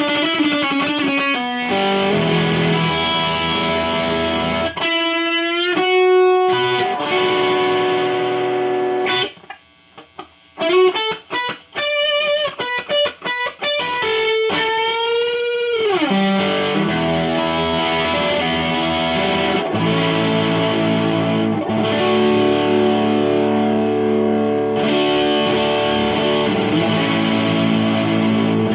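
Epiphone Dot ES-335 semi-hollow electric guitar played through a Marshall 5005 amp with a little overdrive: lead lines with bent notes held with vibrato. About a third of the way in there is a short run of clipped, stopped notes with brief silences between them.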